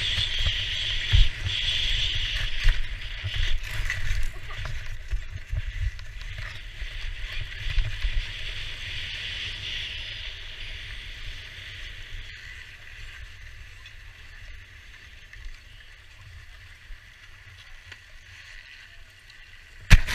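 Skis sliding over packed snow with a steady hiss that fades as the skier slows to a stop, over a low rumble of wind on the microphone. At the very end, a sudden loud knock and clatter of the camera being handled.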